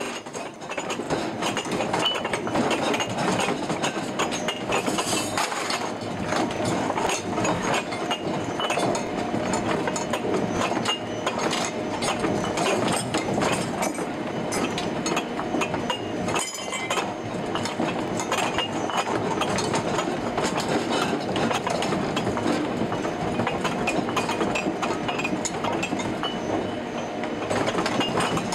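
Furniture and household objects in a room rattling, knocking and clinking without a break under strong, continuous earthquake shaking.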